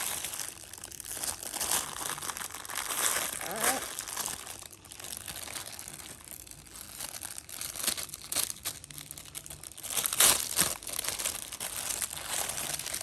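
Plastic packaging crinkling and rustling as a pop-it fidget toy is unwrapped, with sharper crackles about ten seconds in.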